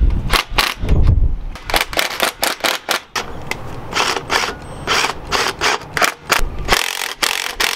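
Cordless impact wrench hammering on the top nut of a rear strut, in short bursts and then a longer run near the end.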